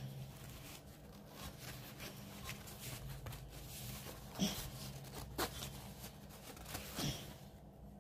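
Rustling and faint crinkling as a large, stiff cross-stitch canvas is handled and folded, with a few sharper crackles about four and a half, five and a half and seven seconds in.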